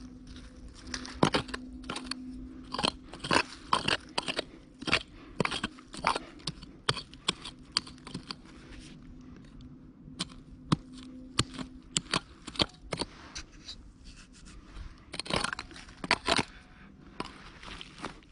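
Short-handled digging pick (keser) chopping and scraping into forest soil: irregular crunching strikes, often several a second, with a heavier run of strikes near the end.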